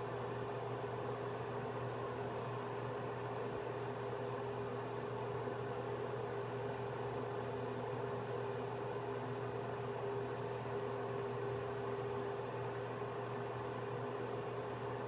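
Steady mechanical hum, a low drone with a steady higher tone over a constant hiss.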